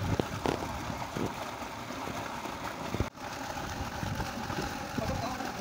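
Water sloshing and splashing in a concrete tank as a person wades and then swims on his back, over a steady low rumble.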